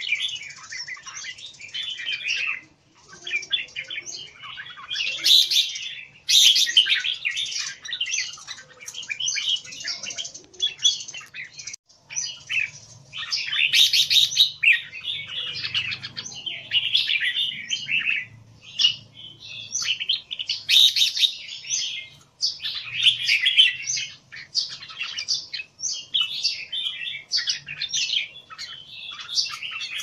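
Caged red-whiskered bulbuls singing: quick chattering, warbling phrases one after another with only brief pauses.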